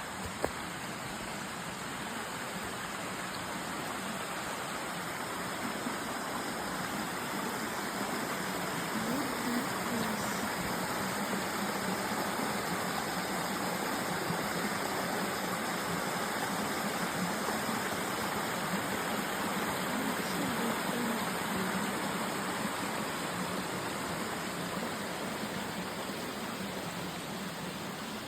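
Steady rush of flowing creek water, growing a little louder over the first several seconds.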